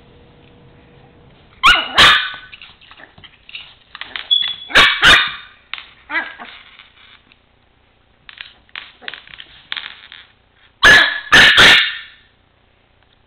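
Chihuahua puppy play-barking in short high bursts: two barks about two seconds in, two more about five seconds in, and three near eleven seconds, with softer sounds between.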